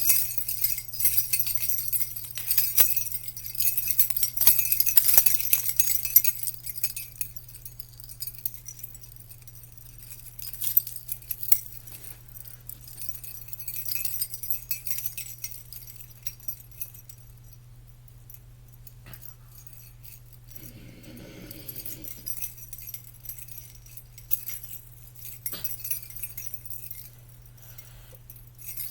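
Small bells jingling and clinking, loudest and busiest for the first six seconds, then softer and more scattered. A low steady hum lies underneath.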